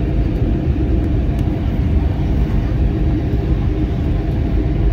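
Airbus A320 cabin noise during descent on approach: a steady, even low rumble of engine and airflow noise heard from inside the cabin.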